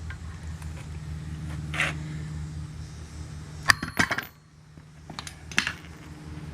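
Metal tools and parts clinking and tapping, with a tight cluster of sharp metallic knocks about four seconds in that ring briefly. A low steady hum runs underneath and cuts out just after that cluster.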